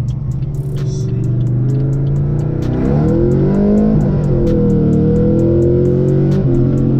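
Pontiac G8 GT V8 with longtube headers and straight-pipe exhaust, accelerating as heard inside the cabin; the engine note rises about three seconds in and then holds steady. Background music plays over it.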